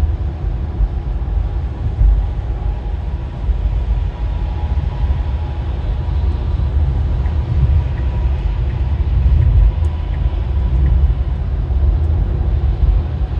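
Cabin road noise of a Tesla Model Y, an electric car, driving at highway speed on a wet road: a steady low rumble of tyres and wind with no engine sound.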